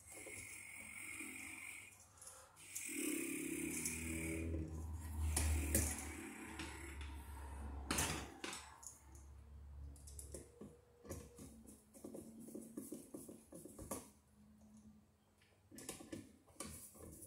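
A man grunting and breathing hard with effort while pressing wires and a receptacle into an outlet box, loudest for a few seconds near the start, followed by scattered clicks and knocks of the outlet and screwdriver being handled.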